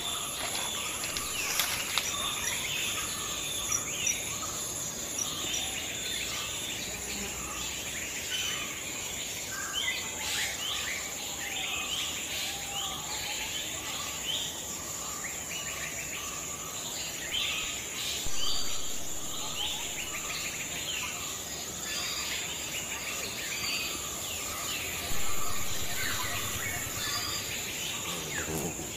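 Forest ambience: insects buzzing steadily at a high pitch, with birds chirping and a short call repeating about twice a second. A couple of brief louder sounds rise above it past the middle and again near the end.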